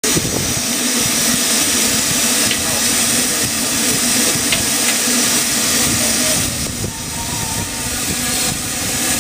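Southern Railway Schools Class steam locomotive No. 925 Cheltenham hissing steam steadily and loudly.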